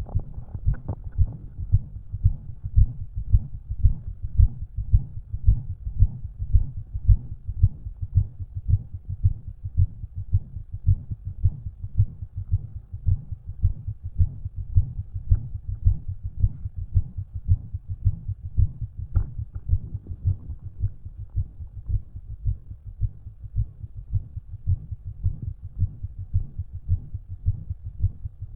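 Resting heartbeat heard through a stethoscope: a steady, regular lub-dub with a murmur and an extra heart sound, which the listener suspects may be an S4.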